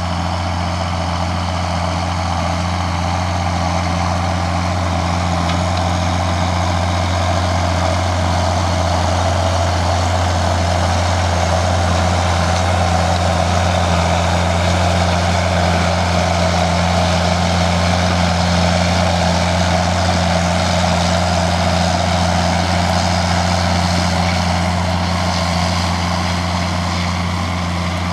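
John Deere tractor engine running steadily at a constant pitch, with a deep hum and a broad mechanical noise over it.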